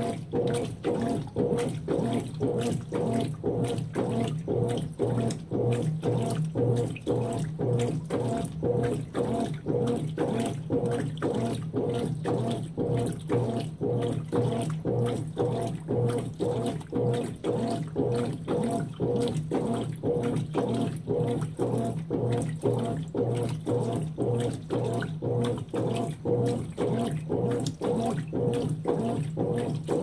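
Consul 16 kg top-load washing machine agitating a full tub: water and clothes sloshing in a steady back-and-forth rhythm of about two strokes a second, over the hum of the motor.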